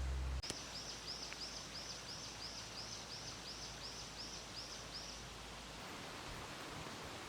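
A low hum cuts off abruptly just under half a second in, leaving a steady outdoor hiss. Over the hiss an animal gives a run of about thirteen high, evenly spaced chirping calls, about three a second, which stop about five seconds in.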